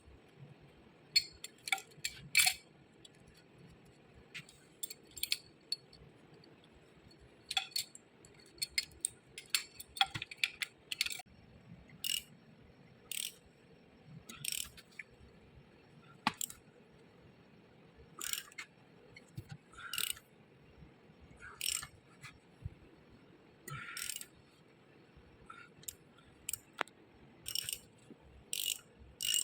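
Irregular sharp metallic clinks and taps, about one every second or so, some ringing briefly: metal tools and motor parts being handled and set down.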